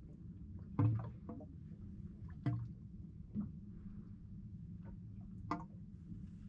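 Quiet water sounds at a boat's side: soft drips and small water slaps, a few short sharp knocks, over a low steady hum.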